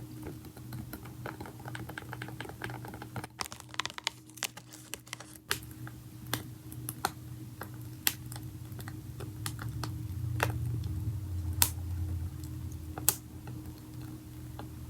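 ASMR tapping on the unboxed packaging pieces: irregular light sharp taps, with a quick flurry of them about three to five seconds in.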